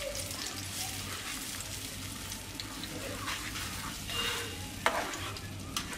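Blended pineapple paste sizzling in hot mustard oil in a nonstick frying pan while a silicone spatula stirs it through, with a couple of short knocks of the spatula against the pan near the end.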